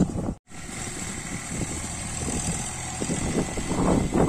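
Tractor diesel engine running, the sound dropping out completely for a moment about half a second in and swelling louder near the end.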